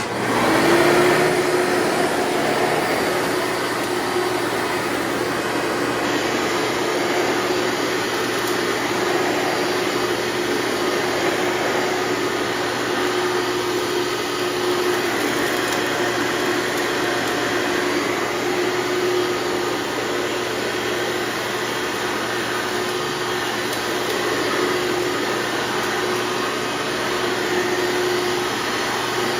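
Hoover Elite bagged upright vacuum cleaner switching on and spinning up at the start, then running steadily with a constant motor hum over the rush of air.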